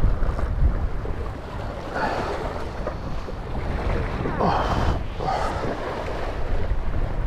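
Sea waves washing against shoreline rocks, with wind rumbling on the microphone; the surf swells louder about two seconds in and again around five seconds.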